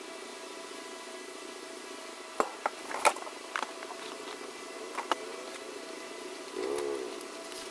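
Cardboard and paper packaging being handled on a tabletop: a handful of sharp taps and knocks as boxes and cards are picked up and set down, then a short rubbing scrape about seven seconds in, over a steady background hum.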